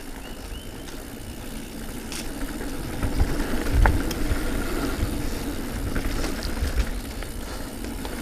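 Diamondback Release 3 mountain bike rolling along a dirt singletrack trail: steady tyre and riding noise with a low rumble, and a few sharp knocks and rattles from the bike over bumps.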